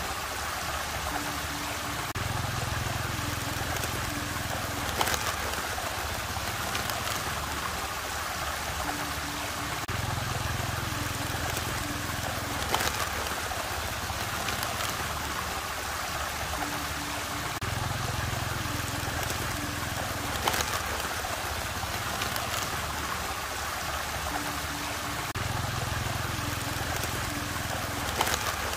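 Steady rushing and trickling of swirling whirlpool water. Under it runs a looping background track that repeats every eight seconds or so, with low notes, short higher tones and a sharp tick.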